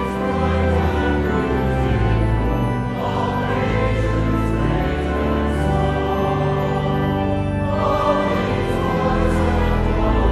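Choral music: a choir singing slow, held chords over deep, sustained bass notes, the chords changing every second or two.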